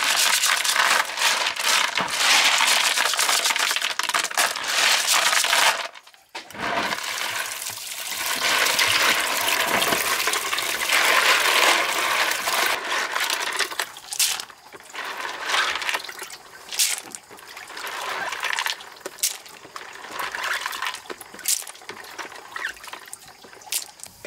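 Water running and splashing in a steady rush that cuts off suddenly about six seconds in and starts again a second later; in the last part it comes in shorter splashes mixed with clicks.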